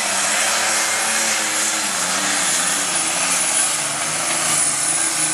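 Turbocharged diesel engine of a super stock pulling tractor running flat out under load during a pull. The engine note dips slightly in pitch partway through, over a high steady turbo whine.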